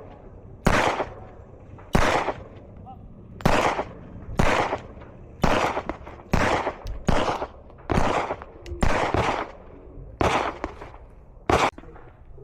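A .40-calibre handgun firing a string of about a dozen shots, roughly one a second, each a sharp crack with a short ring after it. The rounds are old .40 hollow points whose bullets have been set back deep into the case by repeated chambering, and they fire normally.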